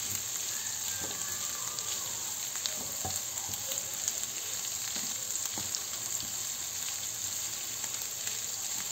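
Sliced onions and tomato paste sizzling in hot oil in a frying pan, stirred with a wooden spoon, with a few light taps of the spoon against the pan.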